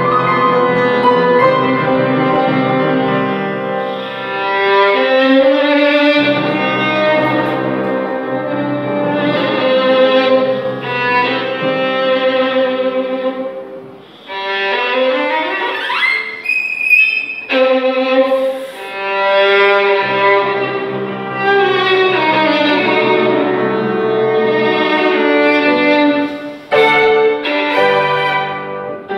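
Solo violin playing a bowed melody over an accompaniment of low held notes. About halfway through, the violin slides upward in pitch.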